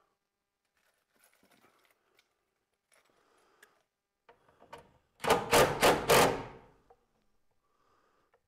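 Cordless drill run in about four quick bursts at the breaker panel, lasting about a second and a half, after some faint clicking and handling sounds.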